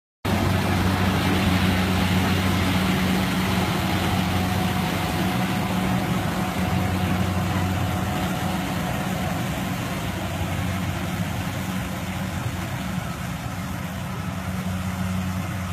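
Rice combine harvester running steadily as it cuts and threshes, a continuous low engine drone with a noisy mechanical whirr over it. It grows a little fainter near the end as the machine moves away.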